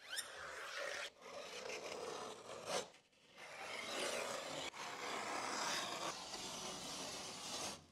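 Utility knife scoring a sheet of plasterboard along a metal straightedge: long scraping strokes, with short breaks about a second in and about three seconds in.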